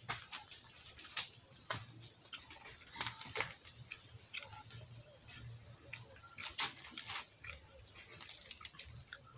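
Wet mouth sounds of people eating by hand: irregular lip smacks and finger licking, over a faint low hum.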